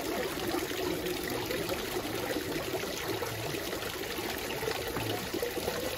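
Mount Fuji spring water trickling and splashing down volcanic rock, and into a plastic bottle held under the stream to fill it.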